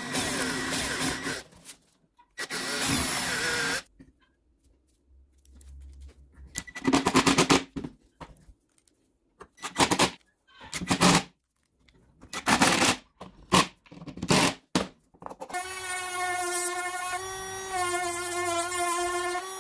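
Power-tool work: two rough noisy spells in the first few seconds, then a run of short separate bursts, then a motor whining steadily for about four seconds near the end.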